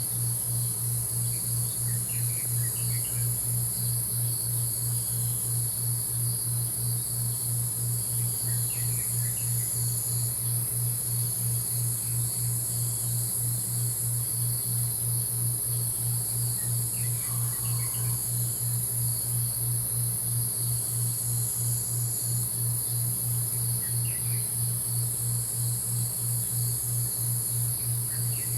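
Crickets chirring in a steady, unbroken high drone over a low hum that throbs about twice a second, with faint short bird chirps every few seconds.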